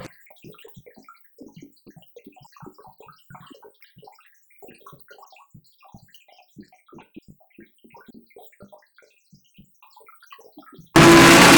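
Faint, scattered drip-like ticks and pops. Near the end comes a sudden cut to loud GT race car engines, several engine notes at once.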